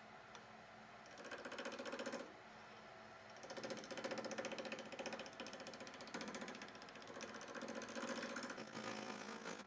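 Wood lathe running with a turning tool cutting the spinning blank, heard as a fast, even chatter over the lathe's steady hum. There is a short cut about a second in and a longer one from about three and a half seconds on.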